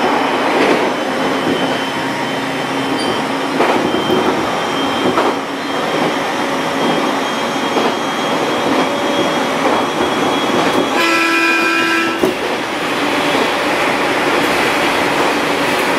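701-series electric train running along the line, heard from the cab, with steady running noise. Its horn sounds once for just over a second, a little after the middle.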